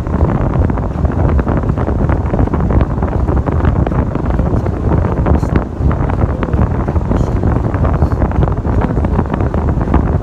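Wind buffeting the microphone: a loud, steady low rumble with many small crackles running through it.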